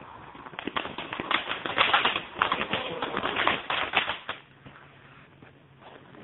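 Ground fireworks crackling: a dense run of rapid pops and snaps that starts about half a second in and stops after about four seconds.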